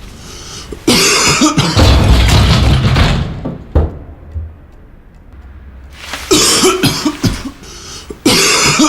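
A man coughing loudly in fits: a long bout about a second in, a quieter pause, then another bout around six seconds in and a third starting near the end.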